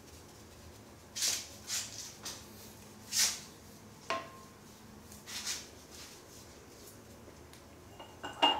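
A few short swishes in the tiled room as a urinal is being cleaned with neutralizer, with a light knock about four seconds in and a sharp click near the end from the cleaning things being handled.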